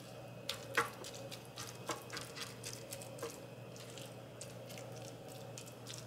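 Oily spice marinade dripping and spattering from a tilted glass bowl onto sliced vegetables in a roasting pan: faint scattered drips and small clicks, with one sharper click a little under a second in.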